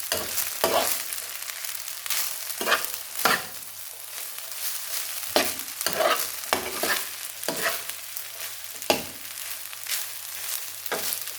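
Rice frying in a pot with a steady sizzle, and a spoon stirring and scraping through it in irregular strokes about every half second to a second.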